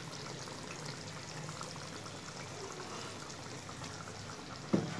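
Hilsa in mustard gravy simmering in a kadai, a steady bubbling hiss. A metal spoon knocks once against the pan near the end.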